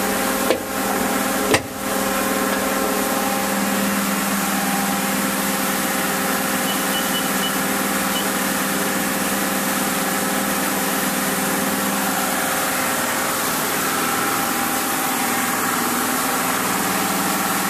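A 1996 Mori Seiki SL-25MC CNC lathe standing powered up, giving a steady mechanical hum with several fixed tones over a hiss. Two sharp clicks come about half a second and a second and a half in.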